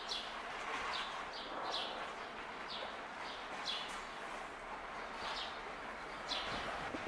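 Small birds chirping: short, high, downward-sliding chirps about once or twice a second, over a steady hiss.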